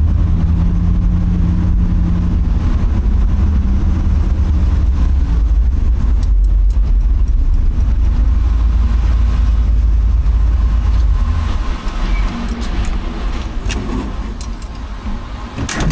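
Ford pickup's 351M V8 heard from inside the cab while driving, a steady low rumble; about twelve seconds in it eases off to a quieter, lighter run as the truck slows. A few sharp clicks near the end.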